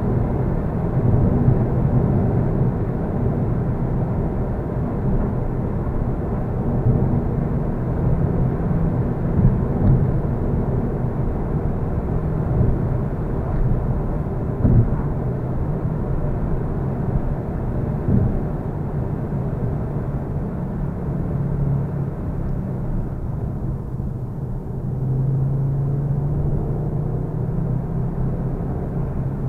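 Car driving at steady road speed, heard from inside the cabin: continuous low tyre and road rumble with a low engine hum, and a few brief knocks.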